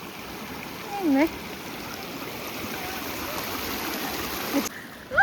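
Steady rush of a mountain stream's flowing water, which cuts off abruptly near the end. A short vocal exclamation sounds about a second in.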